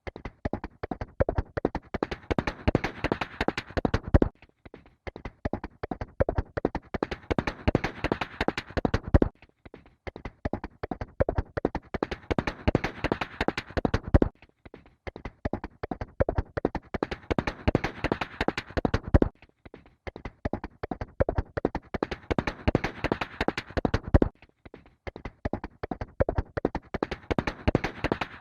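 Horse hooves galloping: a rapid run of hoofbeats, looped, breaking off briefly and starting again about every five seconds.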